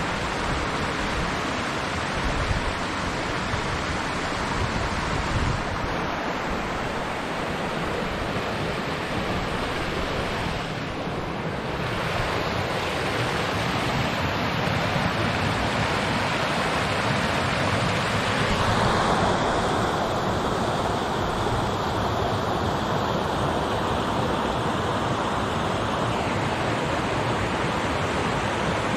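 Steady rushing of a fast forest river pouring over small rapids and low cascades, growing a little louder and brighter about two-thirds of the way through.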